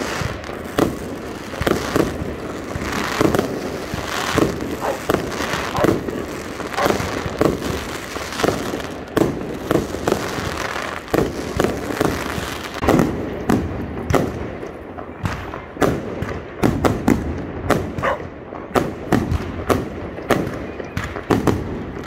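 Aerial fireworks going off in a continuous barrage: sharp bangs one after another, several a second at times, coming thicker in the second half.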